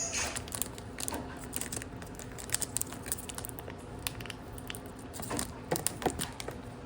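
Trading card packaging being handled and opened: scattered crinkles and small clicks, a few sharper ones about two and a half seconds in and near the end.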